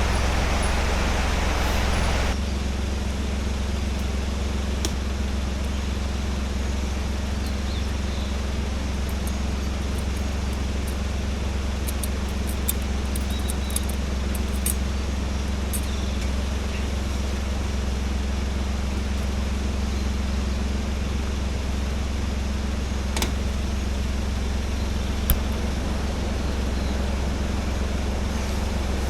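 A car running: a steady low hum and road rush, with a few faint clicks.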